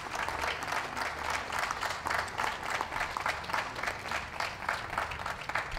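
Audience applauding steadily: many hands clapping at once in a dense, even patter.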